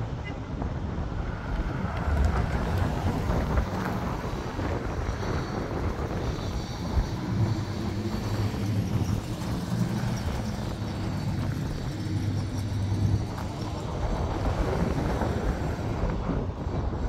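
Wind buffeting the microphone over street traffic, with a low engine hum from a motor vehicle strongest through the middle.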